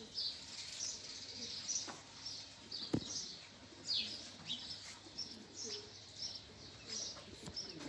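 Small birds chirping: a steady run of short, high chirps, most falling in pitch, about two or three a second, with a single sharp click about three seconds in.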